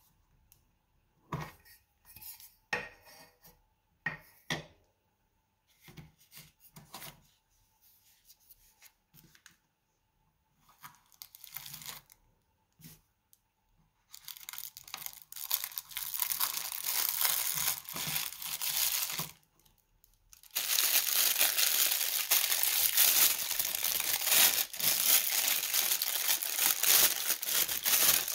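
A few light clicks and knocks from handling a hexagonal metal watch tin, then, from about halfway, long stretches of loud plastic crinkling as a watch is worked out of its clear plastic bag, with a short break in the middle.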